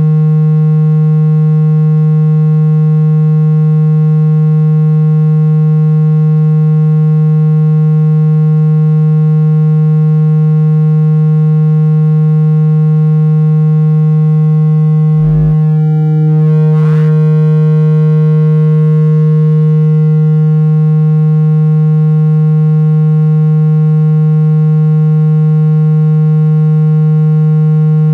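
Loud, steady, low buzzing electronic tone with a stack of overtones: a speaker-cleaning tone meant to shake water and dust out of a phone speaker. It is briefly disturbed by a click about halfway through, then carries on unchanged.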